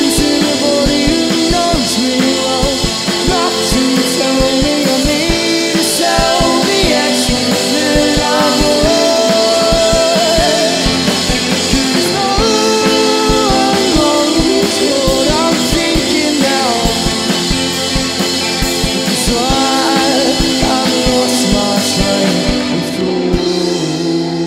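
Live rock band playing: two electric guitars, bass guitar and a drum kit, with a steady beat. Near the end the drums stop and the guitars are left ringing out as the song closes.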